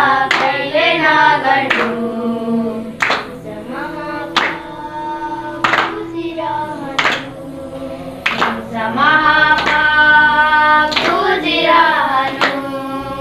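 Group of children singing a Nepali devotional bhajan together, with hand claps keeping a slow, even beat about every second and a half.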